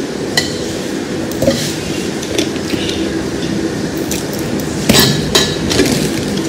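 Dishes and cutlery clinking at a meal, a few sharp clinks with the loudest pair about five seconds in, over a steady low background hum.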